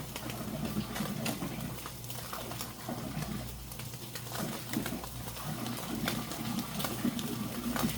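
Eel grilling over charcoal: irregular crackling and sizzling, over a low steady hum.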